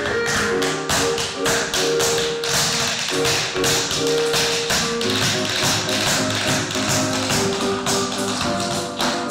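Tap dancing: tap shoes striking the floor in quick, rhythmic runs of taps, over music with held notes.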